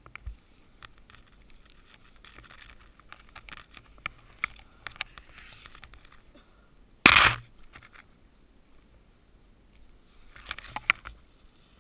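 Deep powder snow crunching and hissing as a person shuffles and steps through it, with scattered clicks and scrapes and a short, loud rush of noise about seven seconds in.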